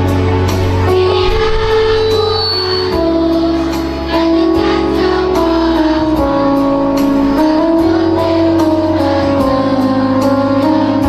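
Children's choir singing with musical accompaniment, long held notes over a steady beat and bass.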